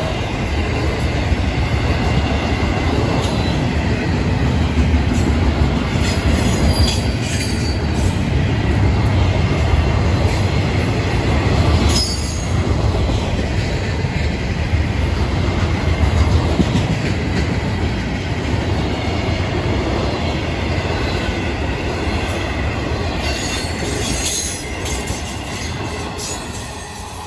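Freight train's intermodal container cars rolling past close by: a steady rumble of steel wheels on rail, with brief wheel squeals and clicks over the rail joints. The noise dies down near the end as the last car goes by.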